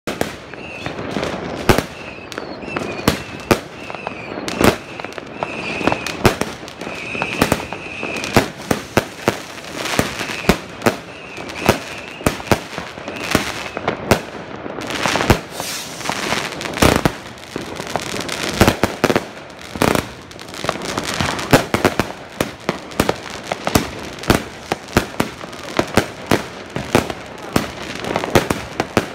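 New Year's fireworks and firecrackers going off all around: dense, irregular bangs and crackles, several a second. A wavering high whistle comes and goes through the first half.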